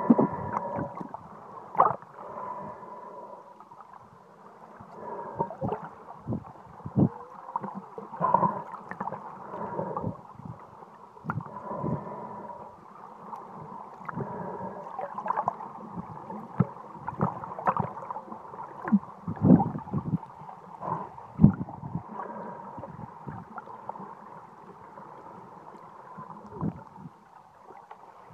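Muffled underwater water noise heard through a sealed waterproof phone case: gurgling and sloshing with irregular knocks and swells as the snorkeler swims, over a faint steady hum.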